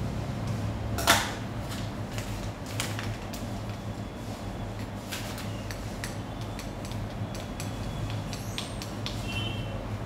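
Scattered light knocks and clicks, the sharpest about a second in, over a steady low hum.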